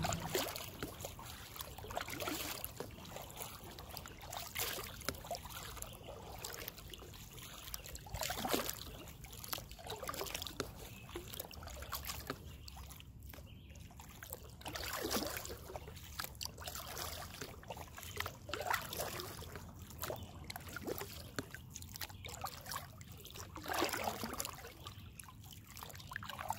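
River water trickling and sloshing around a kayak moving with the current, with the occasional splash of a paddle stroke.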